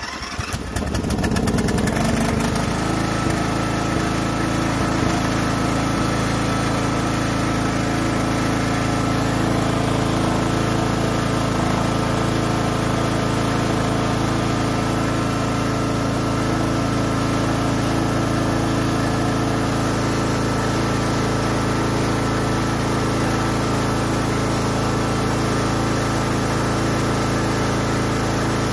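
Craftsman riding mower's 13.5 hp engine running steadily just after a choked start. It picks up speed over the first couple of seconds, then holds an even speed.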